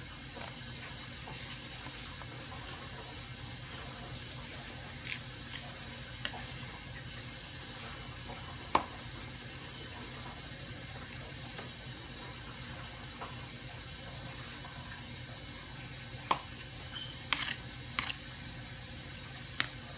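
A knife clicking against a plate while cutting sausage into chunks: a few sharp taps, most of them in the last few seconds, over a steady hiss.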